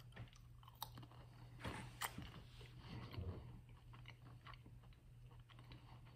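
A person faintly chewing a pecan, with scattered small crunches and mouth clicks, over a low steady hum.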